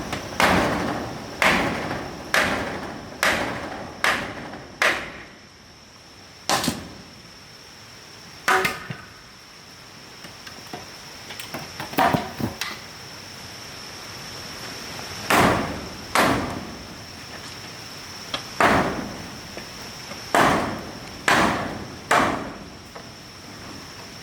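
Repeated hard hammer blows, mostly about one a second: a run of six at the start, a few scattered strikes and lighter taps through the middle, then another run in the second half. A steady high tone sounds underneath throughout.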